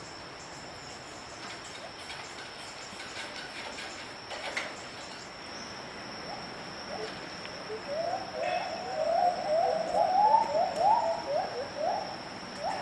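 Gibbons singing: a run of rising hooting notes that begins about seven seconds in and grows louder, over a steady high-pitched insect drone.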